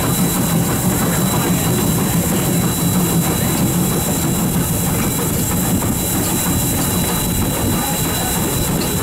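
Norfolk and Western #475, a 4-8-0 steam locomotive, running along the track, heard up close at the front beside the smokebox: a steady rumble and rail noise with a faint clickety-clack.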